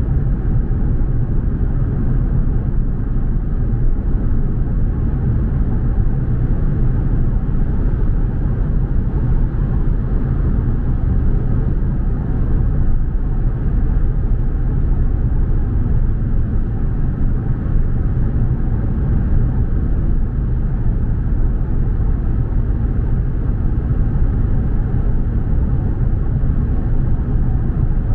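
Steady low rumble of a car driving: tyre and road noise with the engine underneath, even throughout with no sudden events.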